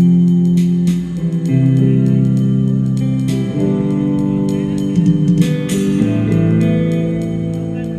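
Instrumental music: a melody of long held notes changing every second or two over a plucked-guitar accompaniment, with light regular percussion ticks.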